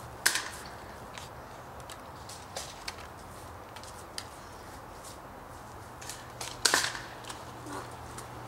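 Two sharp snaps of spring airsoft shotguns firing, one just after the start and one near the end, with a few fainter clicks between.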